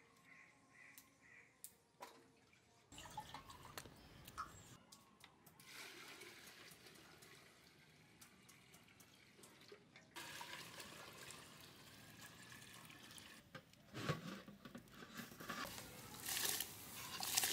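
Water poured from a bowl into a large metal cooking pot, followed near the end by washed rice tipped into the pot with a louder rush. A few faint cutting clicks come first.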